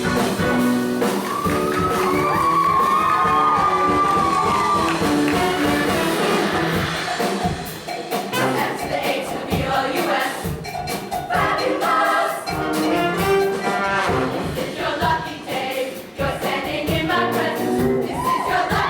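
Show choir singing with a live backing band, voices holding long chords over a steady beat.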